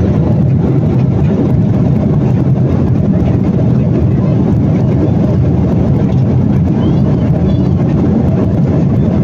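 Steady cabin noise of a jet airliner in cruise flight, heard inside the cabin: an even, low rushing drone of engines and airflow that does not change.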